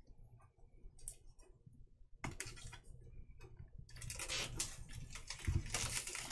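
Fingernails picking and clicking at the plastic shrink wrap on a hardcover notebook, then the thin wrap crinkling and tearing as it is peeled off, louder and busier from about four seconds in.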